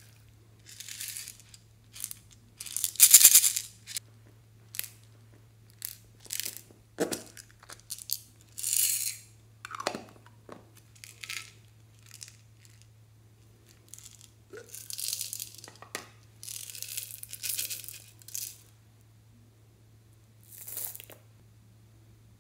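Short bursts of rustling and crackling as glitter, sprinkles and foam beads are handled and scattered over slime in a glass tray, the loudest about three seconds in, with a steady low hum underneath.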